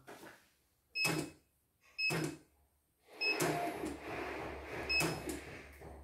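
Computerized embroidery machine beeping four times, each beep with a short burst of mechanical noise, its drive running with a steady whir and low hum from about three seconds in.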